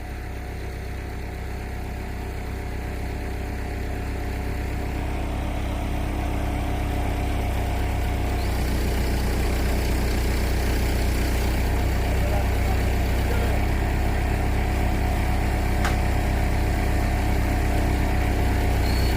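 Backhoe's diesel engine running steadily, growing gradually louder over the first half and then holding.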